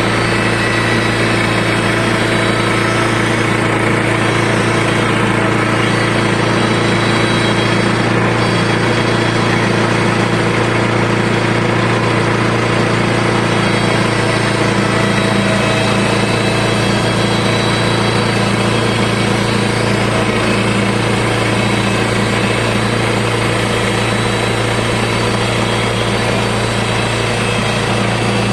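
Small petrol engine of a portable bandsaw timber mill running steadily, driving the blade through a cut into a 50 mm batten.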